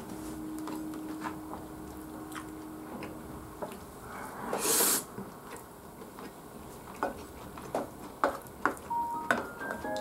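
Wooden spoon clicking and scraping against a ceramic bowl while eating chicken rice, with a brief louder rush of noise about halfway. Soft background music underneath: a held note at first and a few notes near the end.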